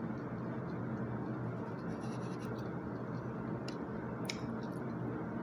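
Steady background hiss with a few light clicks and scrapes of a plastic fork against a plastic food tray and sauce cup, mostly in the second half.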